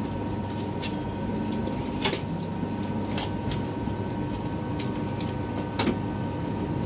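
Steady running noise of a passenger train heard from inside the carriage: a low rumble with a constant high whine, broken by a few sharp clicks and rattles.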